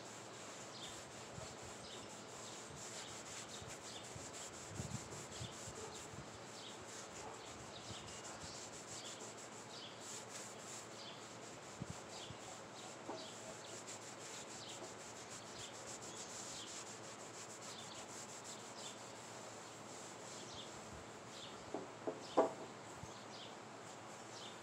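Cloth rubbing wood stain along a wooden board in long wiping strokes, with birds chirping in the background. A few sharp clinks come near the end.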